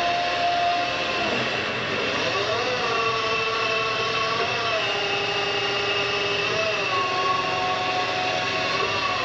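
Hardinge CNC chucker lathe running: a steady mechanical whine made of several tones, whose pitch slides and steps up and down a few times.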